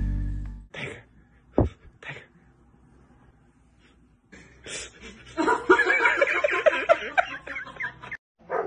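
A person snickering and laughing in quick, breathy bursts, starting about four and a half seconds in and stopping suddenly near the end. Before it, background music fades out within the first second, followed by a few soft clicks.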